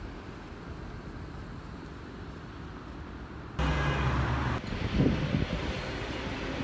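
Steady low outdoor background rumble for about three and a half seconds. It cuts abruptly to a passenger train: the locomotive's diesel engine humming low, then the cars rolling and clattering over the track, louder.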